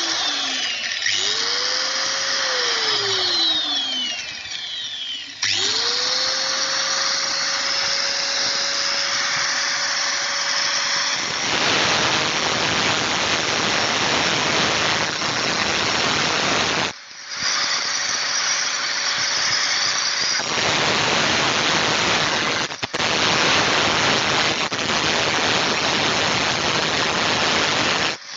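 Angle grinder spinning up and winding down twice, then running with a steady whine. Two long stretches of cutting follow, the first from about 11 seconds in and the second from about 20 seconds in, each adding a loud harsh grinding noise.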